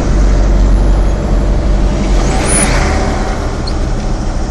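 Car driving, heard from inside the cabin: steady low engine and road rumble, with a brief rushing noise swelling about two and a half seconds in.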